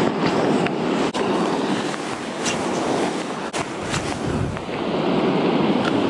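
Steady rushing noise of wind buffeting the microphone, with a couple of sharp clicks.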